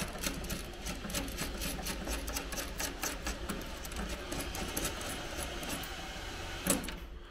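Ratchet wrench undoing a 13 mm bolt: a steady run of quick metallic clicks, with a louder knock near the end.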